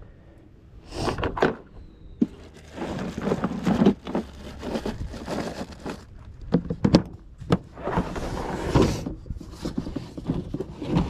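Irregular thunks, knocks and scrapes of gear being handled in a plastic-lined pickup truck bed beside an open plastic cooler, with a few sharp clicks; the loudest burst comes near the end.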